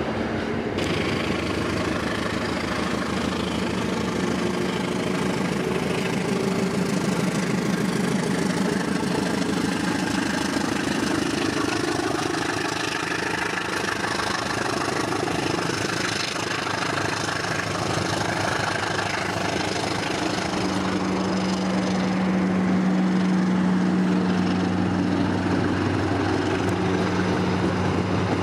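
A train running close by with a steady engine hum; a deeper, steadier tone comes in about 20 seconds in and holds.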